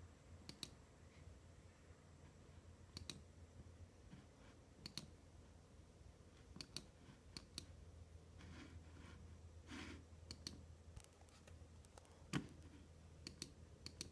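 Faint computer mouse clicks, scattered irregularly, many in quick pairs, with one louder knock about twelve seconds in, over a low steady hum.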